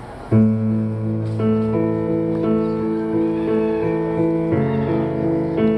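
Kawai digital piano and acoustic guitar playing a slow ballad introduction. The music starts suddenly with a loud chord about a third of a second in, then moves through sustained chords in a slow, even rhythm.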